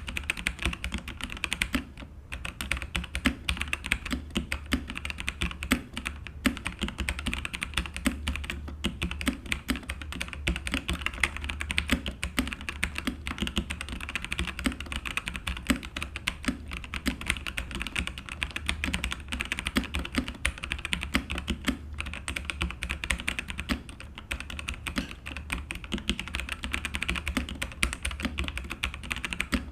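FreeWolf K87 tenkeyless mechanical keyboard being typed on continuously, a fast, irregular stream of key clacks with only brief pauses. A steady low hum sits underneath.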